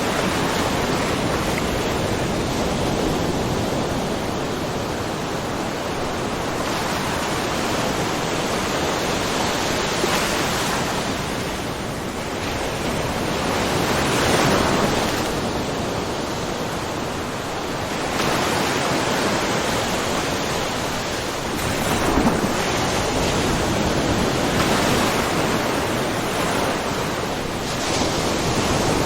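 Ocean waves lightly splashing in a rocky cove: a continuous wash of surf that swells and falls back every few seconds.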